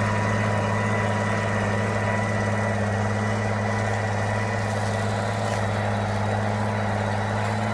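SAME Titan 145 tractor's diesel engine running at a steady, even drone, with a thin steady whine above it.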